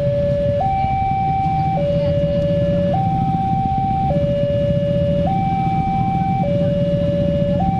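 Railway level-crossing warning alarm: an electronic two-tone signal alternating steadily between a lower and a higher tone, each held a little over a second. It sounds while a train approaches and the crossing gates are down.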